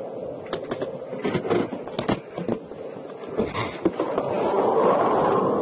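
Inside a patrol car moving on a highway: a run of sharp clicks and knocks over road noise in the first three seconds, then a steady hiss that grows louder from about four and a half seconds in.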